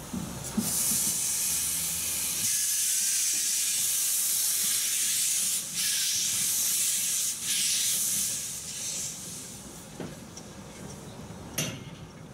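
Blanc-Misseron 020+020 Mallet steam tank locomotive hissing loudly as steam blows from its cylinder drain cocks while it moves off slowly. The hiss breaks off briefly twice and dies away about ten seconds in, followed by two sharp knocks near the end.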